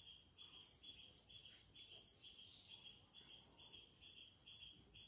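Near silence with a faint insect chirping steadily about twice a second, and faint scratching of a graphite pencil shading on paper.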